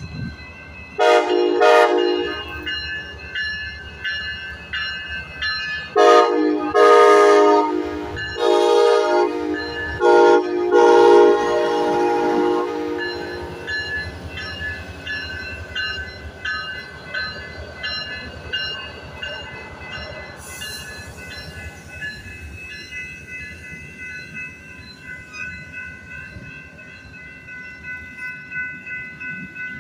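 Amtrak passenger train's horn sounding the long, long, short, long grade-crossing signal as it approaches, over the steady dinging of the crossing's warning bell. The train then rolls through the crossing with the rumble of its passing cars.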